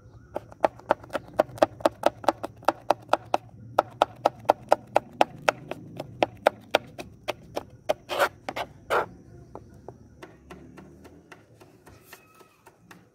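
Kitchen knife slicing green chillies on a cutting board: a steady run of sharp taps, about four a second, with a brief pause. Two louder knocks come a little past the middle, then the tapping turns fainter near the end.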